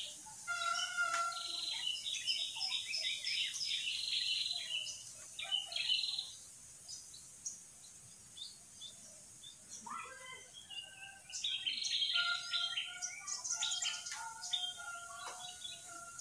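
Birds singing and chirping in the background: two busy spells of quick chirps and whistled notes, with a quieter stretch in the middle, over a steady high hiss.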